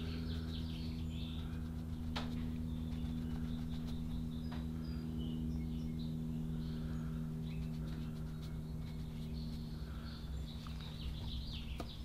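Steady low room hum made of several even tones, with faint bird chirps in the background and a couple of soft clicks.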